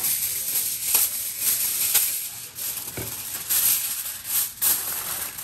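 Briouats frying in hot oil: a crackling, sizzling hiss that swells and fades, with a few sharp clicks about one, two and three seconds in.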